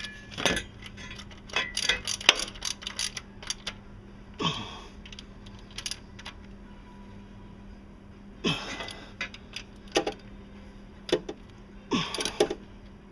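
Hand ratchet clicking in quick runs as the hydraulic timing-belt tensioner is bolted down, then a few separate metal clinks and knocks.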